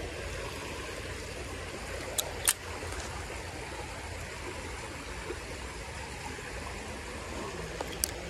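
Steady rush of a small creek's running water. A few sharp clicks cut through it, two close together about two seconds in and one near the end.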